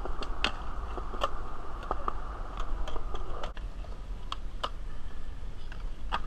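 Skateboard wheels rolling on smooth concrete: a steady rolling hiss with a dozen or so sharp clicks and clacks scattered through it.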